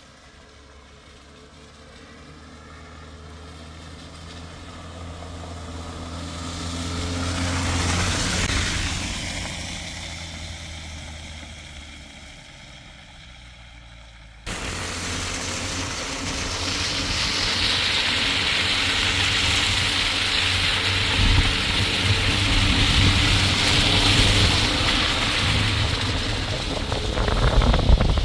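A motor vehicle's engine hum growing louder as it approaches, then fading as it moves away. About halfway through, the sound cuts abruptly to a louder, steady rushing noise with a low engine rumble underneath.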